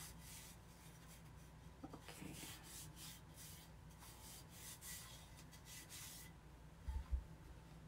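Faint, irregular rubbing strokes as a waxed wooden Christmas tree cutout is handled and wiped against a cloth towel, then two soft low thumps near the end.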